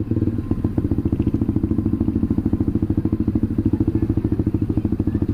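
Honda CBR150R's single-cylinder engine running through a replica SC Project aftermarket exhaust, a steady, even run of exhaust pulses at a constant pace as the bike is ridden.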